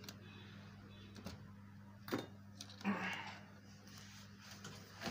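Faint handling noise: a sharp knock about two seconds in and a short rustle about a second later, over a steady low hum.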